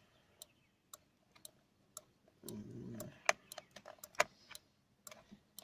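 Irregular light clicks and taps of plastic parts as an aftermarket central-locking control unit is handled.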